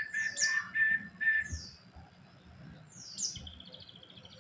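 Songbird chirping: a few short, high calls with falling notes in the first second and a half. Another falling call comes a little after 3 s, then a quick run of repeated notes near the end.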